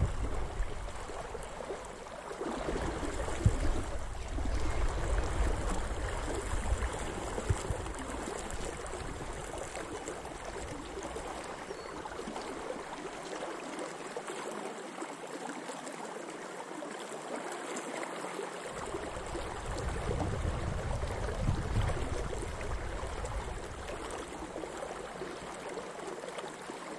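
Steady rush and gurgle of a spate river running high after heavy rain, flowing around a wading angler, with low rumbling that comes and goes.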